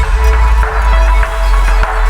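Background music: an electronic track with heavy bass, held tones and a steady beat.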